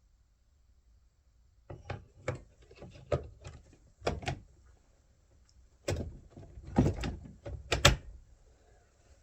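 Plastic cover of a chainsaw being fitted back on: irregular knocks and clacks as it is handled and pushed into place, loudest near the end.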